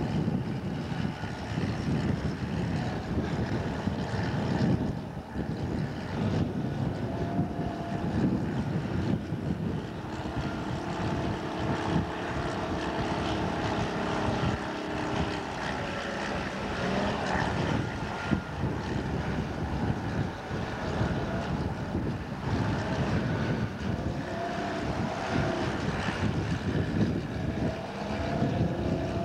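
Diesel engine of heavy demolition machinery running steadily, with wind rumbling on the microphone.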